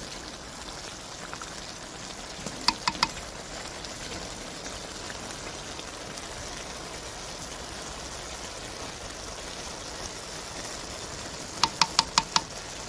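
Aloo matar pulao sizzling and steaming in an aluminium pot as the rice is turned with a wooden spatula, its cooking water just dried off. Three quick sharp knocks about three seconds in and five more near the end, the spatula tapped against the pot.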